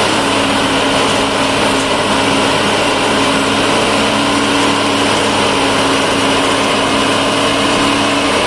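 Duomatic railway track tamping (packing) machine working: a loud, steady din of engine and machinery, with a low hum that fades in and out.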